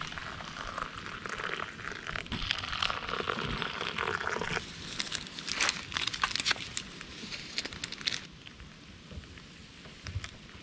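Rustling and crinkling while camp breakfast is handled, then a run of sharp clicks and knocks like dishes and utensils being handled.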